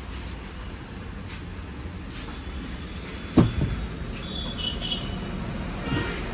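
A steady low hum with one loud metallic clank about three and a half seconds in, a brief ring falling away after it, typical of tyre-changing tools striking a motorcycle wheel rim.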